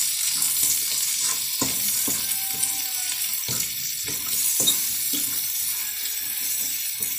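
Sliced calabresa sausage with onion and tomato sizzling steadily in an aluminium frying pan, stirred with a fork that scrapes and taps against the pan every second or two.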